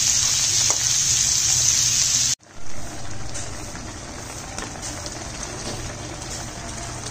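Meat and vegetables sizzling loudly in hot oil in a wok, a steady hiss. It cuts off suddenly about two seconds in, and a much quieter simmer follows, the sauce bubbling with faint pops.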